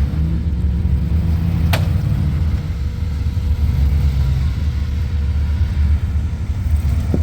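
Off-road truck engine running at low revs while rock crawling, a steady low rumble. A sharp click about two seconds in and another near the end.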